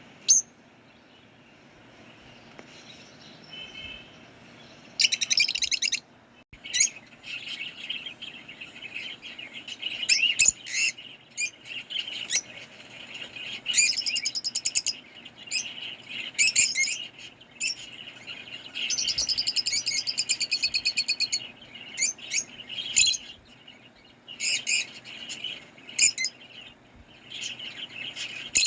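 Pet lovebirds chirping in bursts of shrill, high calls, some of them fast, buzzy trills. The first five seconds are mostly quiet before the calling starts.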